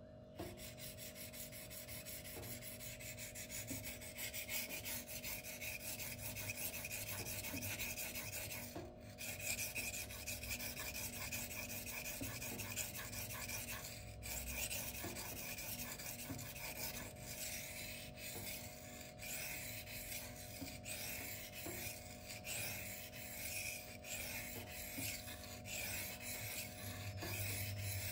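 M390 steel knife blade stroked repeatedly across a Shapton whetstone, a continuous gritty scraping with the rhythm of the strokes. The edge is still being ground to a new, lower bevel and has not yet reached the apex.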